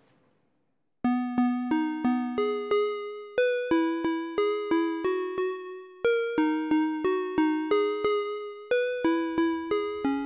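Music: a synthesizer playing a repeating melody of short ringing notes that fade away, about three a second, starting about a second in.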